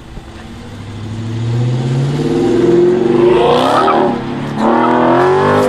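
Dodge Charger accelerating hard as it pulls away, its engine revs climbing, dropping sharply at an upshift about four seconds in, then climbing again in the next gear.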